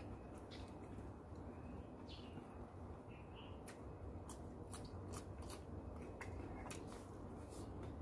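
Quiet eating sounds: scattered crisp clicks from chewing raw vegetables and a metal spoon scraping a plate of chicken laab, over a low steady background rumble.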